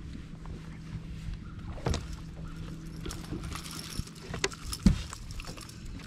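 A steady low motor hum on a fishing boat, with a few sharp knocks over it, the loudest about five seconds in.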